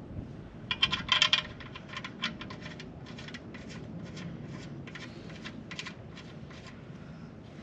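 Light metallic clicking in short, irregular runs, loudest about a second in, while the oil drain plug bolt is being threaded back in.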